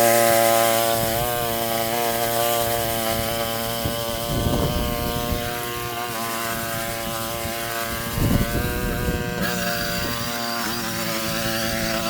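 Westermann walk-behind moss brush running, its small engine holding a steady note that wavers slightly under load. Two louder bursts of scraping come about four and eight seconds in, as the rotating brush scrubs moss off the ground.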